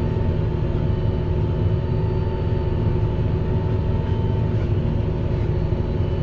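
Fendt 724 Vario tractor running steadily under heavy load while pulling a plough through hard, compacted soil, heard from inside the cab, with thin steady high tones over the engine.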